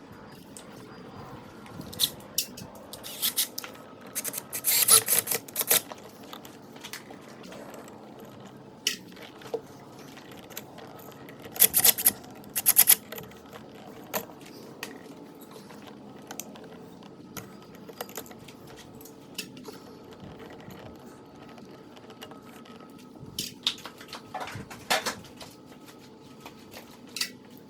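Scattered clicks, taps and crinkly rustles of hands handling the wires at a light-switch box and small sticker labels, coming in a few short clusters with quieter handling between.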